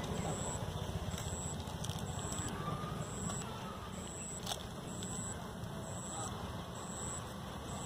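Outdoor background with a steady low rumble and a short high-pitched beep repeating about once a second, with a few faint crinkles from a chips packet being handled.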